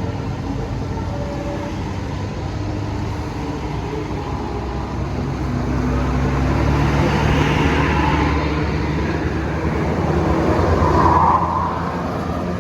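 A bus driving past close by: the engine runs steadily, then engine and road noise swell over several seconds to a peak near the end and fall away as it passes.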